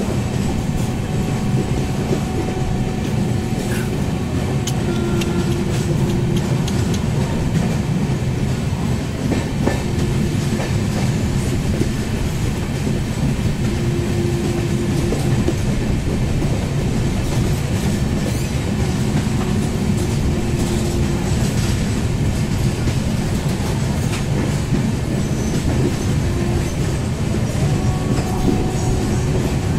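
Sapt Kranti Express passenger coach running through a station without stopping, heard from the open doorway of the coach: a steady rumble and clickety-clack of wheels on the rails.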